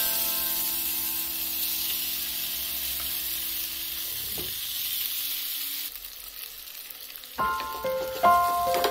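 Spice-coated whole fish shallow-frying in hot oil in a pan, sizzling steadily; the sizzle drops off about six seconds in. Background music is underneath: a held chord fades over the first few seconds and new notes start near the end.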